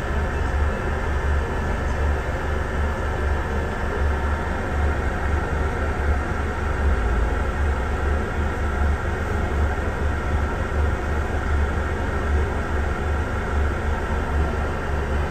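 Steady low engine rumble and road noise heard from inside a double-decker bus's upper deck.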